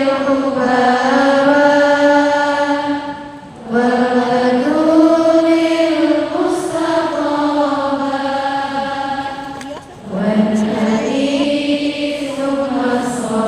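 A single voice chanting in long, melodic held phrases that glide slowly up and down, pausing briefly for breath about a quarter of the way in and again about three-quarters of the way in.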